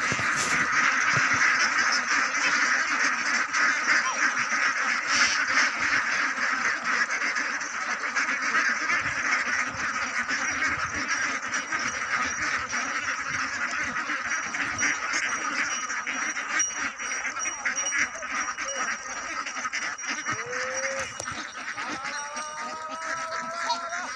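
A large flock of domestic ducks quacking all together, a dense, steady chatter of many birds at once. Near the end a rising pitched call joins in.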